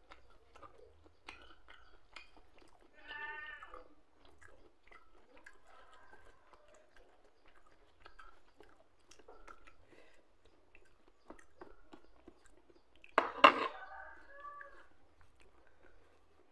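Close-up chewing and lip-smacking of a man eating rice and pecel by hand, a run of small wet clicks. A short pitched vocal sound comes about three seconds in, and a sudden loud sound with a brief voiced tail about thirteen seconds in is the loudest moment.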